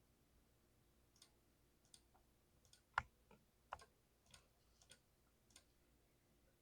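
Keys with lubed Cherry MX Speed Silver linear switches being pressed one at a time: about ten soft, scattered keystroke clicks, with one louder one about three seconds in.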